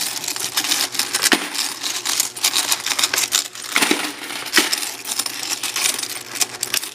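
Many quarters clinking and clattering against each other in quick, irregular succession, as coins are poured or run through in bulk.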